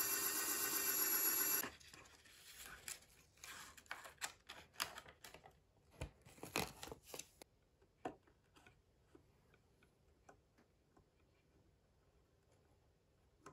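A loud, harsh noise for under two seconds at the start. Then light clicks and taps of small model parts being handled, thinning out to faint ticks after about seven seconds.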